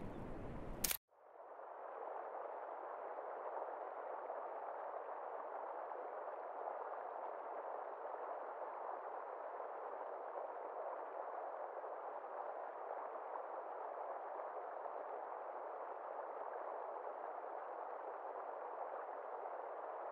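An abrupt cut about a second in, from open outdoor ambience to a steady, muffled rushing noise with a faint low hum beneath: an even, filtered sound-design texture that does not change.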